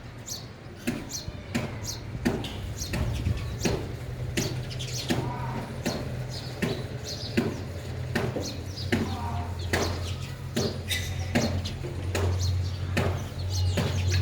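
House sparrows chirping: many short, sharp chirps, several a second, over a low steady hum.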